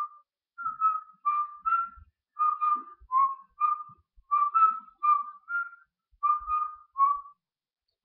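A person whistling a tune: a run of short, clear notes, about two a second, that stops shortly before the end.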